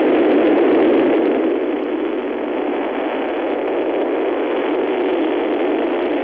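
Soyuz rocket engines at liftoff: a loud, steady rushing noise that eases slightly after the first second or two.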